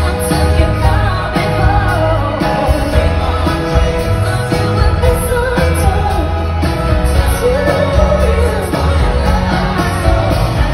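A live pop song with a female lead vocalist singing over a band with heavy bass, with backing singers, heard through the arena's PA from within the audience.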